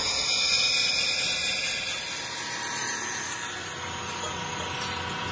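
Steady workshop machinery noise, with a high whine that fades out about two seconds in.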